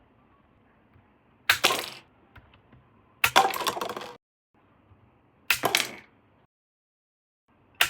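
Toy packaging being handled, three short noisy bursts of crackling, each under a second long.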